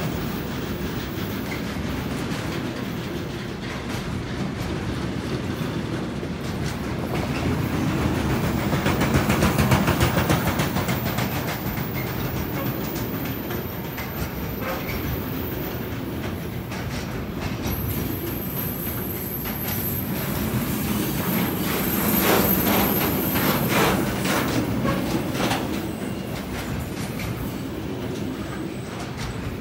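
Intermodal freight wagons loaded with containers and swap bodies rolling past on a departing train. The wheels rumble and clack over the rail joints, louder twice as bunches of wheels go by. A thin high wheel squeal comes in now and then.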